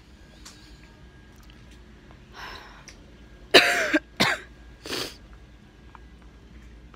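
A person coughing: a faint cough, then three loud coughs in quick succession, the first of these the loudest.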